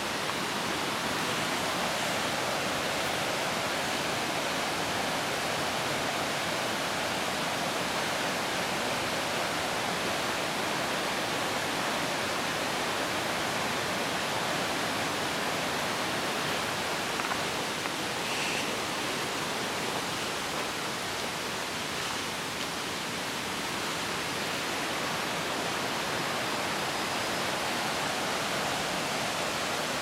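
Steady rush of flowing water, an even hiss that holds without a break.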